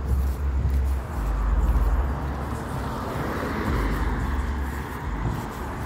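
A car passing along the street, its noise swelling past the middle and then fading, over an uneven low rumble on the phone microphone.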